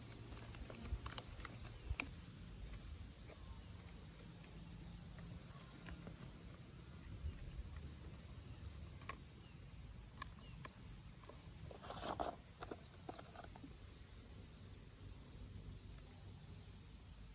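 Faint steady high-pitched insect trill, like a cricket, with scattered small clicks and knocks and a short clatter about twelve seconds in.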